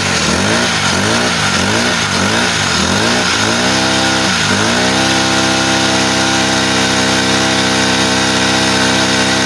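Honda GX35 four-stroke brush cutter engine, running on a new replacement carburetor, revved in quick throttle blips about twice a second. After a brief dip about four seconds in, it settles into a steady, even run. The clean, smooth throttle response shows the misfiring and hard starting are cured.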